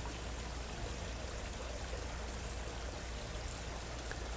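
Steady, even background hiss with a low hum underneath.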